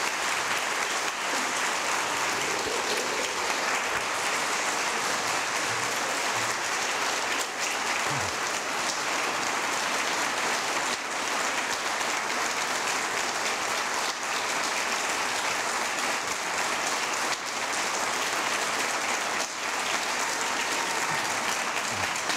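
A large audience applauding, a dense, steady clapping that keeps up without a break.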